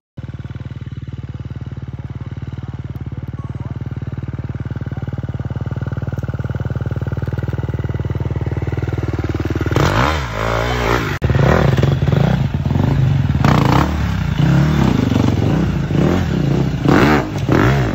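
A dirt bike engine running at a steady pitch, slowly growing louder. About ten seconds in, a Husqvarna 300 TPI two-stroke enduro engine is revved in quick bursts, with knocks, as the bike is wheelied and ridden up brick steps.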